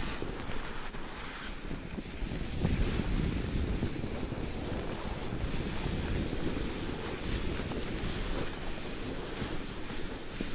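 Wind buffeting the microphone: a steady, uneven rumbling rush with a fainter hiss above it.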